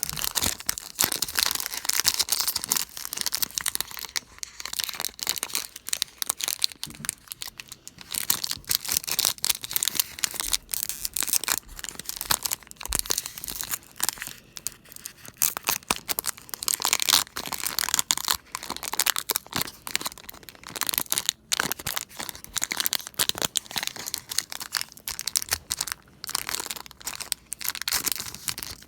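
Foil Pokémon booster pack wrapper being crinkled and torn open by hand: an irregular, crackling rustle that keeps going with short pauses.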